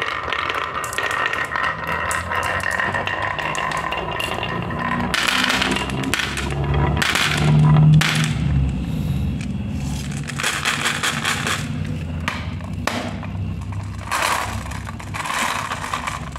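Glass marbles rolling down a wavy groove in a wooden track with a low rumble, clicking against one another and clattering into a plastic tray. The rumble is loudest about eight seconds in.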